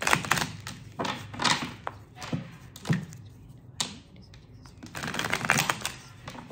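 A tarot deck being shuffled by hand: irregular bursts of rapid, crackly card-on-card flicking, roughly once a second, with a longer run near the end.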